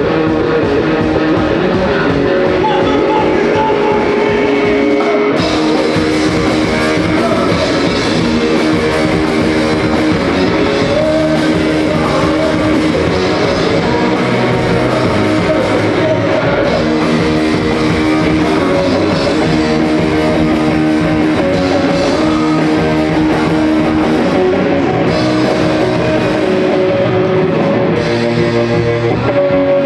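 Live rock band playing a song through the stage PA during a sound check: electric guitars, bass and drum kit, loud and continuous, getting fuller about five seconds in.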